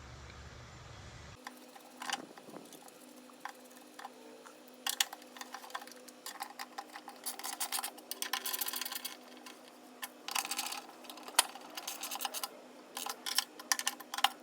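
Hand work on a truck: scattered clicks and light rattles, with dense runs of rapid clicking in the middle and near the end.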